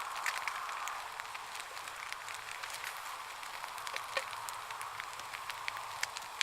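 Campfire cooking: irregular small pops and crackles from the fire and the frying pan of scrambled eggs, over a steady hiss.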